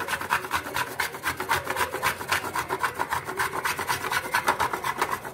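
A block of dark compound chocolate scraped rapidly up and down the coarse holes of a metal box grater: a rhythmic rasping of about six strokes a second.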